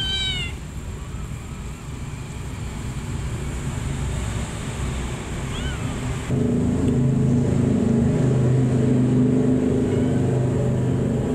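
A kitten gives a short, high mew at the very start and a fainter one about six seconds in, over a steady low machine-like hum that grows louder just after the second mew.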